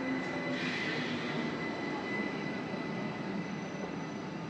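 Bernese Oberland Railway narrow-gauge electric train close by: a steady running hum with a thin high whine, and a short hiss about a second in.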